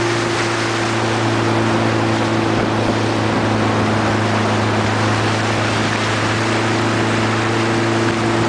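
Chase boat's outboard engine running at a steady speed, a constant hum over the rush of water past the hull.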